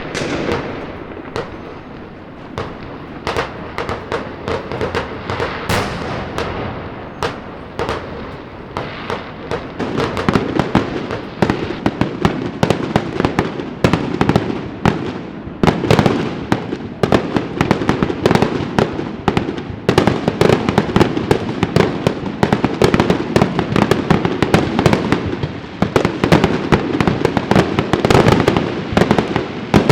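Fireworks and firecrackers going off in a continuous barrage of sharp bangs and crackles. The bangs are sparser for the first ten seconds or so, then come in a dense, rapid string.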